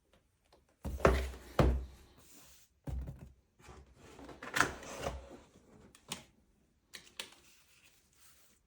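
The award box being handled and opened: a string of knocks and clicks with short scraping rustles between them, the loudest two close together about a second in.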